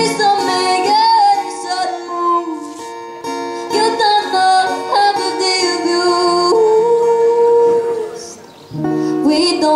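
Live acoustic music: a woman singing, with long held notes, over her own acoustic guitar. The sound dips briefly near the end before the music comes back in.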